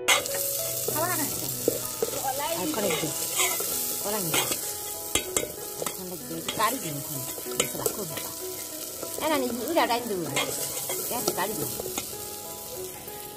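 Masala frying in hot oil in a pan, sizzling steadily, while a spatula stirs it. The spatula scrapes the pan over and over with squeaky scrapes that rise and fall in pitch, and it clicks against the pan now and then.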